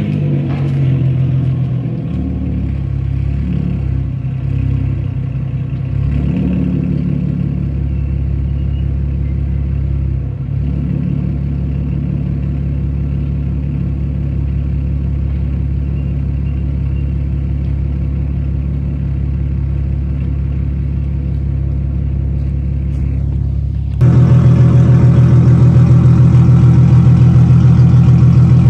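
Straight-piped 2011 Infiniti M37x's 3.7-litre V6, with catless downpipes and the muffler and resonator deleted, running with a low steady exhaust note. The note shifts a little in the first few seconds, then idles evenly. About 24 seconds in it cuts to a much louder, closer idle at the exhaust tips.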